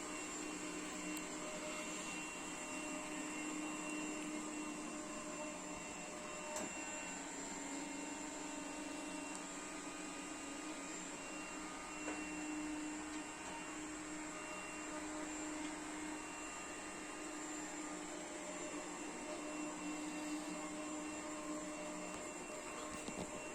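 Puppyoo R30 robot vacuum running steadily: the even hum of its suction fan and brush motors with a thin constant whine, and a couple of faint clicks.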